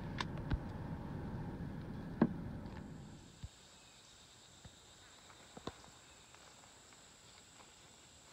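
Steady low rumble of a car cabin with a few sharp clicks, then at about three seconds a cut to a faint, steady, high-pitched drone of insects in woodland.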